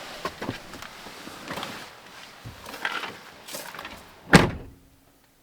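A car door on a 2015 Hyundai Santa Fe slammed shut once, about four seconds in, after a few lighter clicks and knocks of handling.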